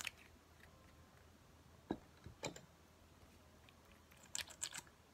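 Faint clicks and taps of plastic lip gloss tubes being handled, capped and uncapped. One click at the start, two more around two seconds in, and a quick run of clicks near the end as another tube is opened.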